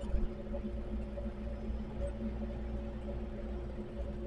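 A truck's engine running, heard from inside the cab: a steady low drone with an even hum over it.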